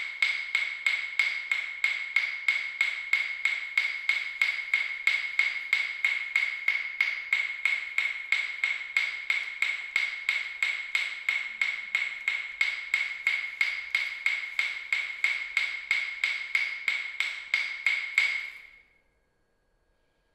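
Steady, evenly spaced ticking, about three sharp ringing ticks a second, like a metronome, fading out near the end.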